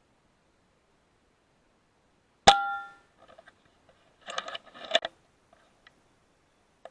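.177 air rifle firing: one sharp crack about two and a half seconds in, with a brief metallic ring. About two seconds later comes a quick run of clicks and clatter, typical of the action being cycled to load the next pellet.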